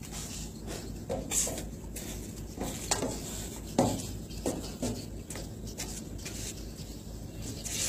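Footwork of a man shadow boxing on a ship's deck: irregular knocks and scuffs of his feet close to the microphone, over a steady low hum.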